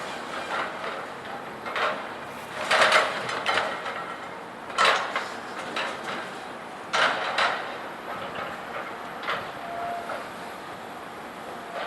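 Scrap metal banging and crashing as a loader handles scrap, heard at a distance: irregular clangs and crashes, the loudest about three, five and seven seconds in.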